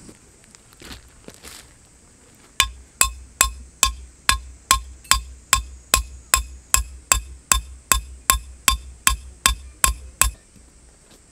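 A metal lantern pole being hammered into gravel ground. About twenty sharp metallic strikes come at a steady two or so per second, each with a short ring. They start a couple of seconds in and stop shortly before the end.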